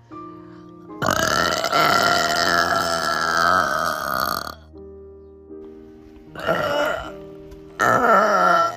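A girl burping very loudly: one long burp lasting about three and a half seconds, then two short burps near the end, over background music.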